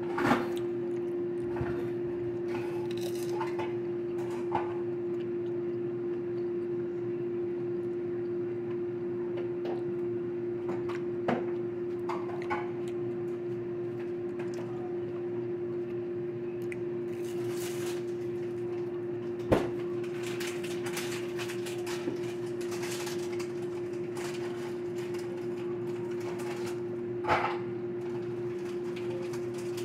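A steady low electrical hum, with a few scattered light clicks and crackly handling noises as crumb-coated eggplant sticks are picked up and dipped. The handling noises cluster around the middle of the stretch.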